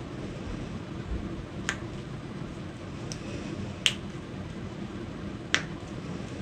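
Joints cracking during a chiropractic spine adjustment: three sharp pops about two seconds apart, with a fainter click between the first two. A steady low hum runs underneath.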